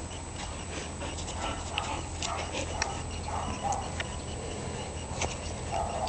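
Dalmatian up on its hind legs against a person, making a few soft, short whining sounds, with scattered light clicks and scuffs of paws and handling.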